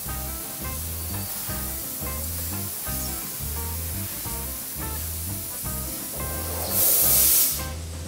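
Background music with a steady beat over the continuous hiss of a laser cutting machine cutting sheet metal. About seven seconds in, a much louder burst of hiss lasts under a second.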